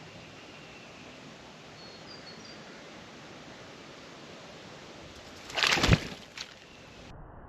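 A bird splashing in a birdbath: a sudden loud splash about five and a half seconds in, then a smaller one. A few faint high bird chirps come about two seconds in, over a steady outdoor hiss.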